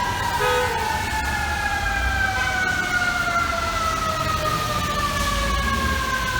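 Fire truck siren winding down, one long wail falling slowly and steadily in pitch, over a low rumble of traffic. A brief short tone sounds about half a second in.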